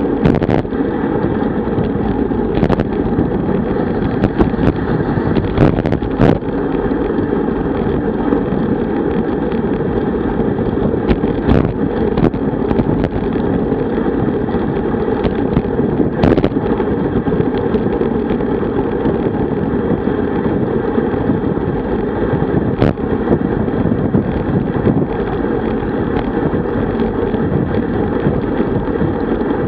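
Wind rushing over a bike-mounted camera's microphone as a road bicycle rides at about 45–50 km/h, a steady low roar of wind and road noise. A few sharp clicks break through at irregular moments.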